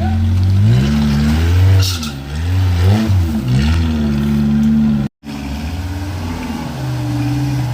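A 4x4's engine revving up and down repeatedly in quick blips. The sound cuts out for a split second about five seconds in, then the engine runs more evenly at a lower pitch.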